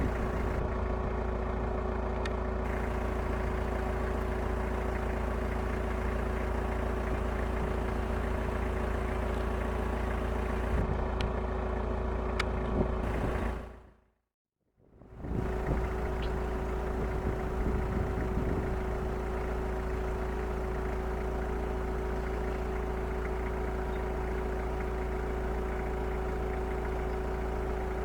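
A car engine idling steadily. The sound fades out briefly about halfway through and then comes back.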